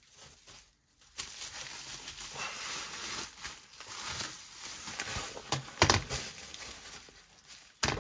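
Bubble wrap crinkling and rustling as it is pulled off a sheathed fixed-blade knife, with two sharp knocks in the second half, one near the end.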